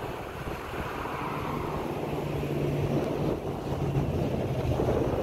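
A steady engine drone comes in about a second in and grows a little louder, heard over wind buffeting the microphone.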